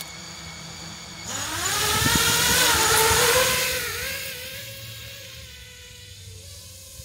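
Four MEPS SZ2408 2500KV brushless motors of an FPV quadcopter spinning their props at idle, then throttling up about a second in with a rising whine as the drone lifts off. It is loudest around two to three seconds in, then eases into a steadier, quieter whine as the quad hovers farther off.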